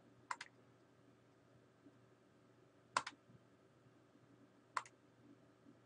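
A computer mouse clicking three times a few seconds apart, the first and last clicks each a quick double, over a faint steady low hum.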